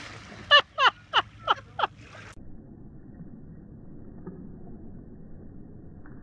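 A person's voice giving five short cries in quick succession, each falling in pitch, over about a second and a half. After that only a faint low background hiss remains.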